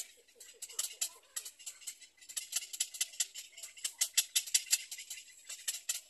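Rapid dry clicking chatter of birds, several clicks a second, rising and falling in loudness.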